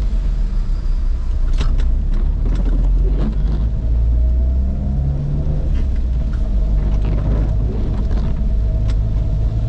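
Inside a car's cabin while driving on rain-soaked streets: a steady low rumble of engine and tyres on the wet road, with scattered short taps.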